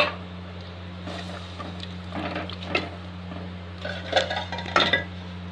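Metal ladle scraping and clinking against a steel cooking pot while stirring a simmering curry, in two bursts of strokes, over a steady low hum.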